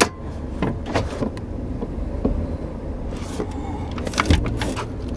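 Clicks and clunks from the foot-operated parking brake pedal being pushed down and set, over a low steady hum.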